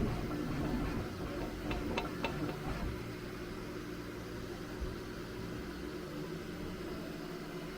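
Bambu Lab P1S 3D printer running: a steady low mechanical hum from its motors and fans, with a few light clicks about two seconds in.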